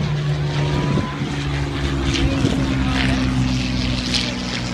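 Propeller-driven aircraft flying low past, its engine giving a steady drone that shifts slightly in pitch as it goes by.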